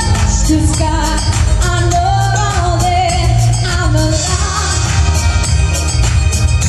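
A woman singing into a handheld microphone, her voice amplified over a pop backing track with a heavy bass and a steady beat; she holds long notes with vibrato.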